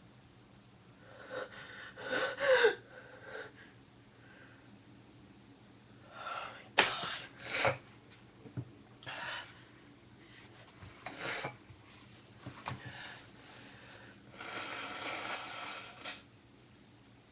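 A woman with a runny nose sneezing: a buildup of breaths ending in a voiced sneeze about two seconds in, then two sharp sneezes in quick succession about seven seconds in, with smaller sniffs or breaths between, and a longer, noisy nose blow near the end.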